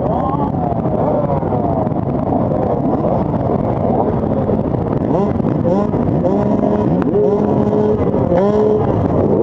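Many motocross bikes running together on the start line, their engines' revs rising and falling over one another as riders blip the throttles. From about six seconds in, some are held at steadier, higher revs with brief dips.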